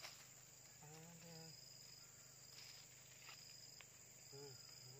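Faint insect chorus: crickets giving a thin, high, steady trill that breaks off and resumes every second or so, with a few faint rustles.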